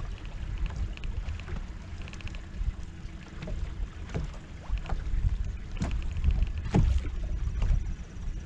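Water slapping against the hull of a bass boat on choppy current, with wind rumbling on the microphone and scattered light clicks and knocks.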